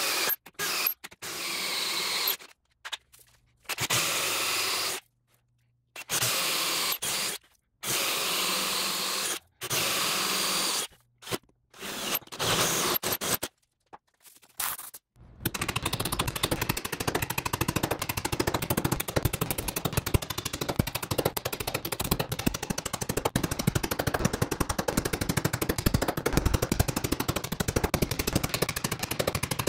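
A power drill boring into a hardwood beam in short bursts of a second or two, separated by silent gaps. About halfway through, this gives way to a chisel being driven into the mortise with rapid, continuous hammer blows, many a second.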